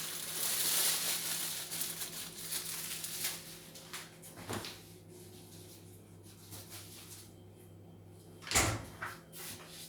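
Kitchen handling noises: a hiss for the first few seconds, then scattered knocks, with the loudest thump about eight and a half seconds in, like a cupboard door or drawer shutting.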